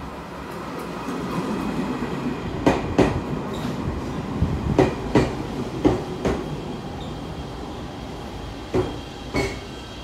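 Chichibu Railway 7500 series electric train pulling into a station, its wheels rumbling steadily and clacking over the rail joints in pairs as each bogie passes.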